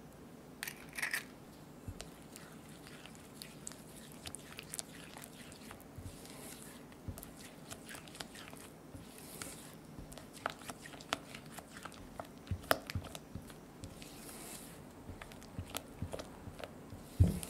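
Spatula mixing an egg yolk into creamed butter and powdered sugar in a glass bowl: soft squelching and scraping, with frequent small clicks against the glass and a sharper knock near the end.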